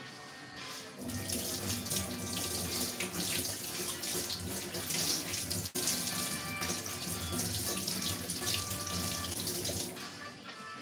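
Kitchen tap running into a sink, starting about a second in and stopping near the end, with soft background music underneath.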